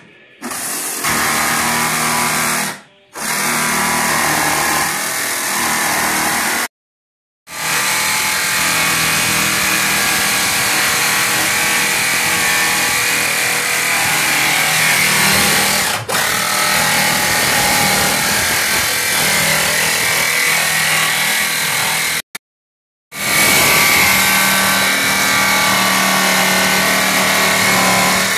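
DeWalt cordless jigsaw cutting through a car's sheet-metal roof, running steadily. The saw stops and starts again several times.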